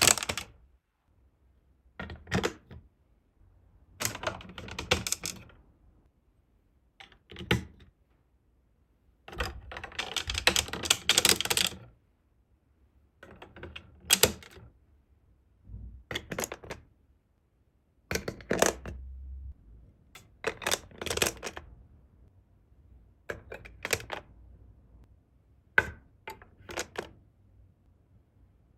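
Glass marbles rattling and clicking along plastic building-block track pieces of a marble run, in about ten short bursts of rapid clicks separated by quiet pauses. The longest and loudest run of clatter comes about ten seconds in.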